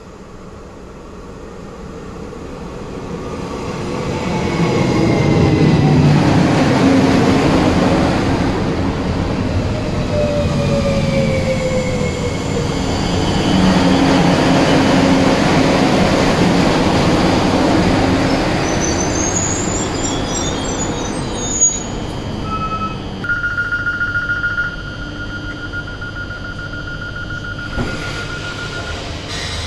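Regio 2N double-deck electric train arriving at a platform: a rising rumble of wheels and running gear, with falling whines as it brakes and a few high squeaks as it stops. After a click, a steady electronic tone sounds for several seconds, first pulsing, from the stopped train, typical of its door signal.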